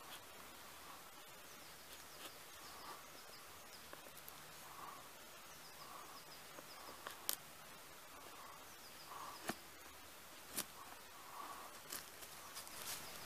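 Enzo PK70 Scandi-grind slip-joint knife shaving a stick into a feather stick: faint scraping strokes and a few sharp clicks, more frequent near the end, over quiet woodland background.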